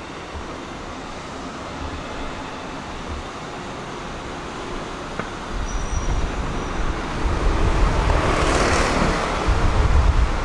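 City tram running through street traffic. It grows louder about halfway through, with wind buffeting the microphone, and a broad rushing noise swells and fades near the end.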